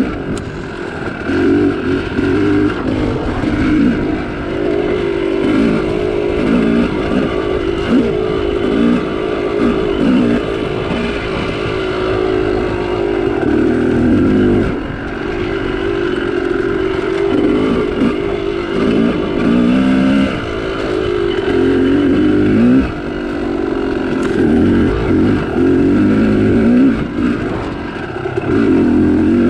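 Yamaha YZ250 two-stroke dirt bike engine being ridden hard, its pitch climbing and falling again and again as the throttle is opened and chopped. The revs dip sharply about halfway through and again later before picking back up.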